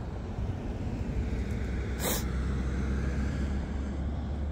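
Steady low rumble of road traffic, with one short, sharp hiss about two seconds in.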